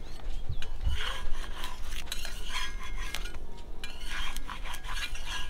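Metal spatula scraping and clinking against a griddle pan in short, irregular strokes, working loose an egg-topped chapti pitha.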